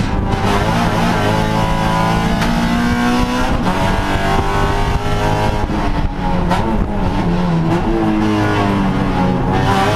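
Honda Civic Si HPD touring car's four-cylinder engine revving hard under racing load, its pitch climbing and dropping repeatedly with gear changes and braking, heard from inside the stripped cabin.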